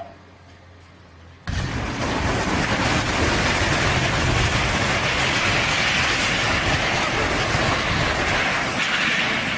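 Heavy vehicle noise: a loud, steady rumble with no clear pitch that cuts in abruptly about a second and a half in, after a faint low hum.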